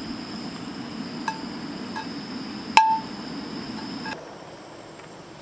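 A few light clinks of a utensil against a small glass dish of butter, the loudest about three seconds in with a short ring, while butter is put into a frying pan on a camp stove. Under them a steady hiss, which drops away a little after four seconds.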